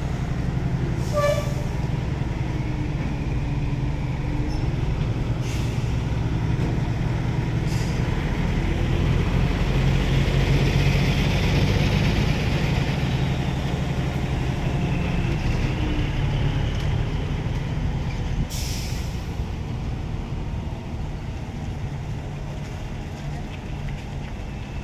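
Heavy diesel engines running: the Hino 500 truck drives off with its empty container trailer, loudest about halfway through, while the truck-mounted crane's engine keeps running. Several short air hisses come through, one longer hiss near the end.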